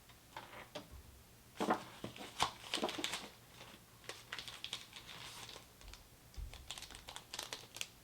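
Irregular quick, light clicks and clacks in uneven clusters, busiest in the first half and again near the end.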